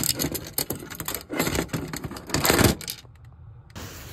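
Quick clicks, knocks and rustling from hands and tools handling wiring at a furnace zone-control panel, stopping briefly about three seconds in.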